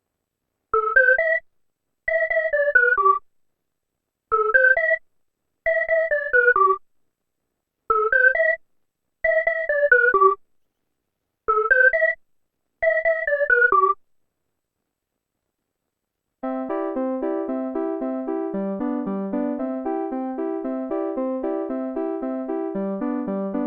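Korg Minilogue analog synthesizer playing preset patches. First come eight short runs of quick notes, alternately rising and falling, with gaps between them. After about two seconds of silence, a different patch plays a steady stream of rapidly repeated notes over shifting bass notes.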